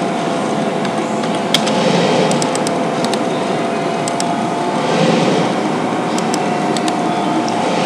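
Steady background hum and hiss with a faint steady whine, with scattered computer mouse clicks as points are picked: one about a second and a half in, a few close together around two to three seconds, and a few more near the seven-second mark.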